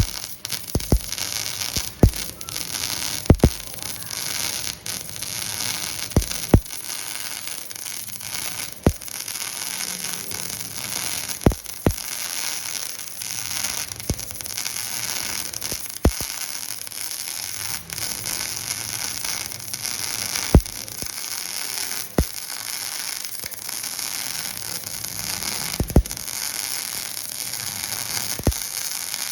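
Welding arc running steadily, a continuous sizzling hiss broken by sharp crackles and pops every second or two.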